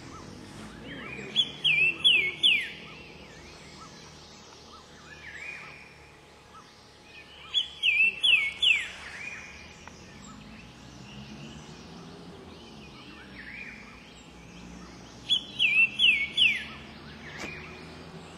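A songbird singing the same short phrase three times, about seven seconds apart: a quick run of clear whistled notes, several of them sweeping downward.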